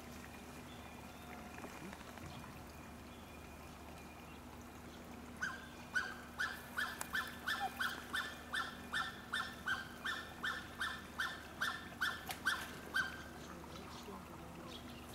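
An animal calling in a fast, even series of sharp calls, about three a second, starting about five seconds in and stopping near the end.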